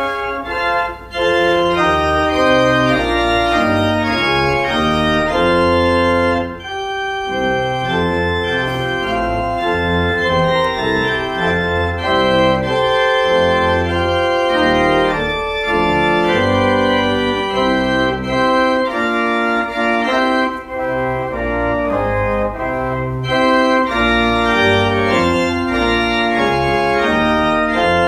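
Church organ playing the postlude, sustained full chords over a moving bass line, with brief breaks between phrases.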